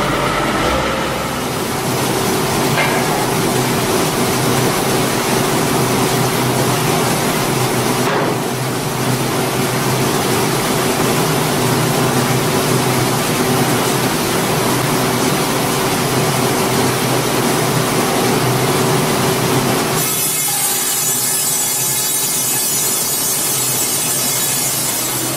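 Large vertical band saw cutting lengthwise through a big log: a steady rasping saw noise over a constant machine hum. The sound changes character about 20 seconds in.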